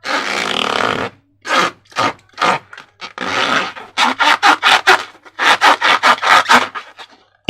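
Slime being mixed: a long scraping rub, then shorter strokes that quicken into a rapid rhythmic scraping of about four to five strokes a second.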